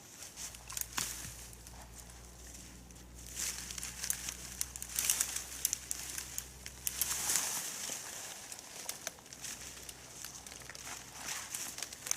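Dry fallen leaves rustling and crackling in irregular bursts. A steady low hum runs under it and stops about seven seconds in.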